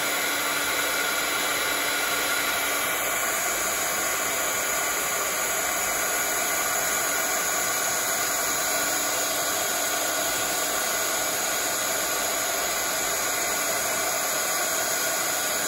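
Handheld embossing heat tool running steadily, a continuous blowing hiss of hot air melting white embossing powder on a stamped image.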